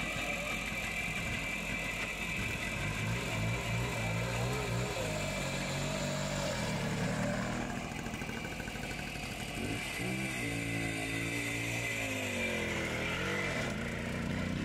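Vintage single-cylinder motorcycle engine running, then revved as the bike pulls away: its pitch rises sharply about ten seconds in and rises and falls after that.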